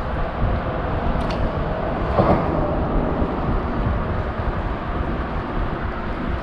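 Steady rumble of road traffic crossing the bridge overhead, heard from underneath the deck, with a brief swell about two seconds in.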